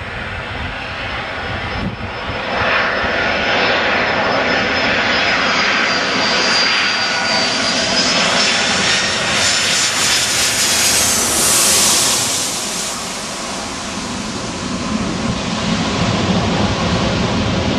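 Jet engines of a Boeing 757-200 on final approach with its landing gear down, growing louder as it comes in low, with a high whine over the rushing noise. It is loudest about twelve seconds in as it passes overhead, then turns to a lower rumble as it moves away.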